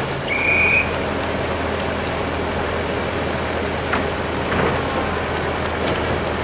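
Kominato Railway diesel railcar idling at a station: a steady low engine drone, with a short high tone about half a second in.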